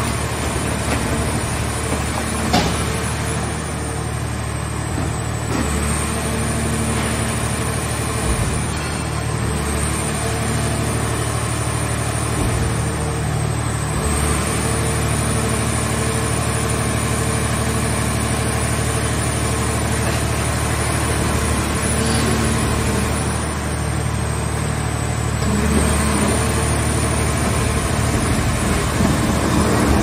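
Gasoline engine of a mobile car-scrap baler running steadily under load, driving the hydraulic press as its lids open and close. A high thin whine above it dips and recovers several times, and there is a single sharp knock about two and a half seconds in.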